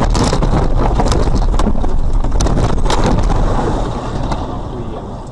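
A car crashing through a roadside barrier and plunging off the road, heard from inside the car: a heavy rumble with a run of knocks and bangs, falling away about four seconds in as the car comes down in the river.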